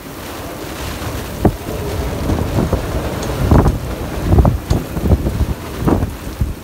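Strong squall wind gusting over a sailboat at anchor, buffeting the microphone with repeated low thumps over a steady hiss of wind and rain on choppy water.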